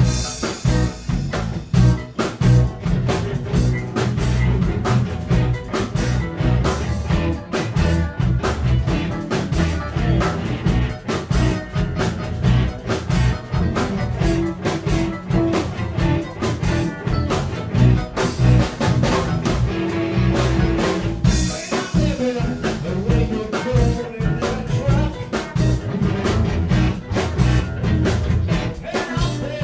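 A live rock band playing a blues boogie: drum kit keeping a steady beat under electric guitars, bass guitar and keyboards.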